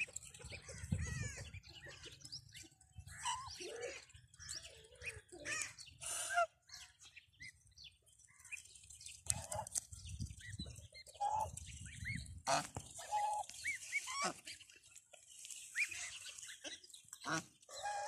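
Domestic geese and their goslings calling while they forage: a steady scatter of short, high peeps from the goslings, mixed with lower calls from the adult geese.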